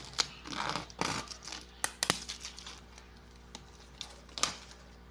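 Scattered light clicks and taps with short rustles, from handling a phone's retail box and its packaging. The sharpest clicks come about two seconds in.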